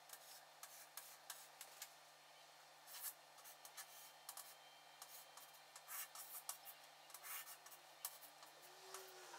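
Faint scratching and tapping of chalk on a chalkboard as small circles and lines are drawn, in short, irregular strokes.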